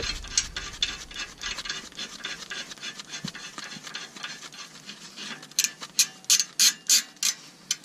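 A lug nut being run onto a wheel stud against a spacer to hold a new brake rotor flat on the hub, with light metallic scraping and ticking. Near the end come about seven sharp clicks in quick succession from a ratchet wrench.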